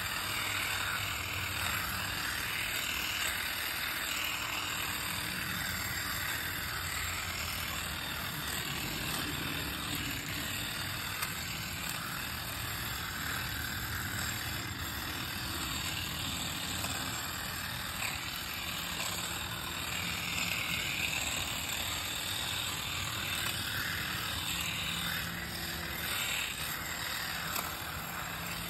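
Ryobi P2900 hedge trimmer running steadily as its blades cut through a bush.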